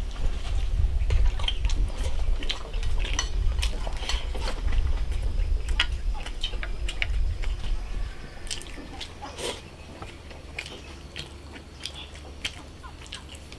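Close-up eating sounds: chopsticks clicking against a rice bowl and a metal pot, with chewing. A low rumble runs under it and stops about eight seconds in.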